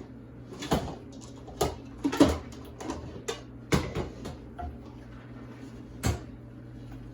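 Kitchen utensils and bowls being handled and set down on a counter: about six sharp knocks and clatters, the loudest a little over two seconds in, over a low steady hum.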